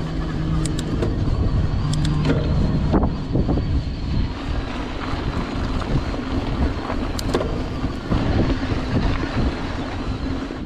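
Riding an e-bike up a rocky dirt trail, heard from the handlebar: wind buffeting the microphone and tyres crunching over dirt and gravel. Under it runs a steady hum from the electric motor on pedal assist, with scattered sharp knocks and rattles from the bike over the rocks.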